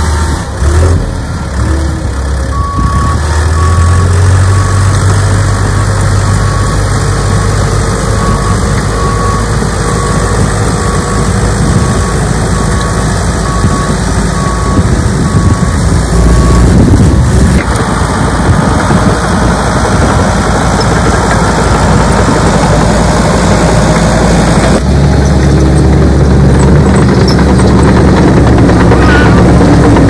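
Diesel engine of a Cat hydraulic excavator running under load as it digs and moves soil, with a faint beep repeating about once a second for much of the first half. In the last few seconds a crawler bulldozer's diesel engine runs close by, heavier and steadier.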